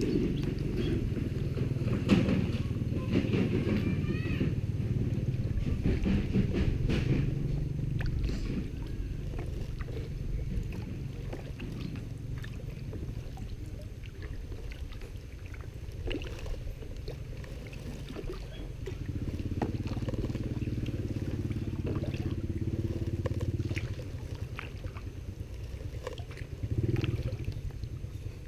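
A motor running with a steady low hum, which swells for a few seconds past the middle.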